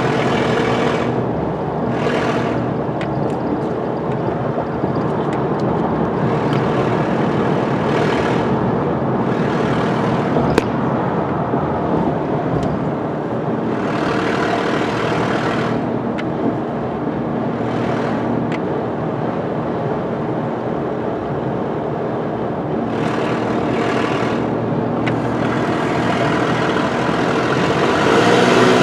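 2009 Nissan Frontier pickup at highway speed, heard from inside the cab: steady engine and road noise that swells and eases every few seconds. An oxygen sensor is out of the exhaust to relieve back pressure while testing for a clogged catalytic converter. The engine gets louder near the end.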